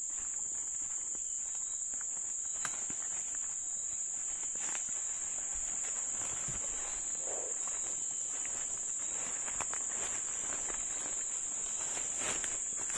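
Insects chirring in a continuous high-pitched drone, with a few faint clicks and rustles.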